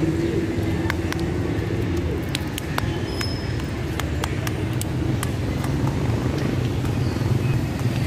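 Steady rumble of street traffic from cars and motorcycles, with scattered light clicks through it.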